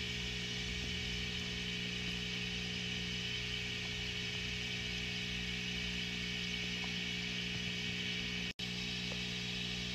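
Steady low electrical hum with an even hiss over it, broken by a brief dropout near the end.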